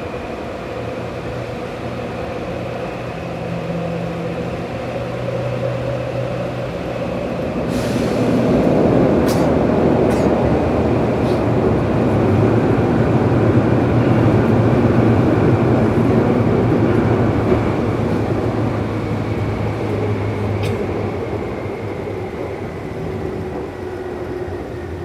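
Cabin noise of a Tokyu 8500 series subway train running through a tunnel: a steady rumble of wheels on rail with a steady tone that grows louder about eight seconds in, with a few sharp clicks. Near the end it eases and the tone falls slightly as the train slows for the next station.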